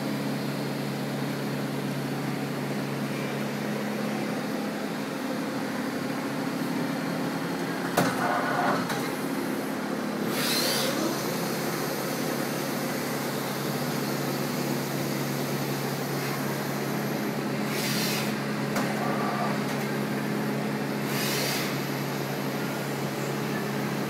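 Steady hum of a powered-up Daewoo V-400 CNC vertical turning center, holding several constant low tones. A sharp click comes about eight seconds in, and a few short hissing bursts, like air being released, come later.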